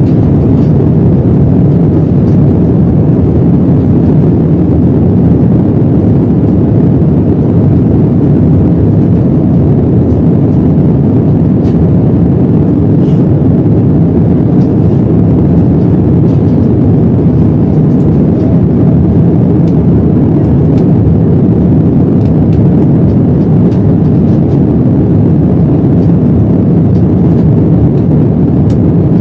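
Steady low rumble of an airliner's engines and airflow heard inside the passenger cabin, with a few faint clicks scattered through it.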